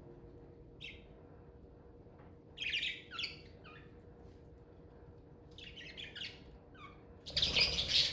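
Budgerigars chirping in short scattered bursts, then a louder, denser bout of chatter near the end.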